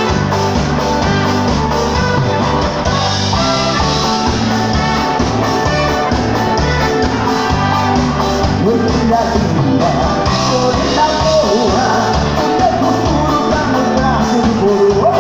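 Live dance band playing loud amplified music over a steady beat, with electric bass and trumpets. A male vocalist starts singing about halfway through.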